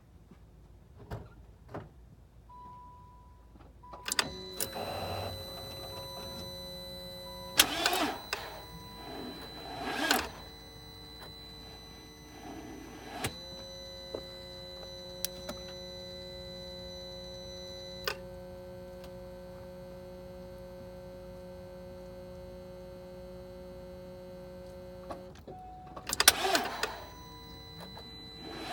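BMW X5 failing to start on a bad battery: several short bursts of clicking and buzzing from the car's electrics, with a steady electrical whine between them, and the engine never catching.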